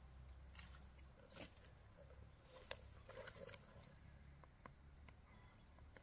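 Near silence: faint outdoor field ambience with a low steady rumble and a few soft, sharp clicks and rustles.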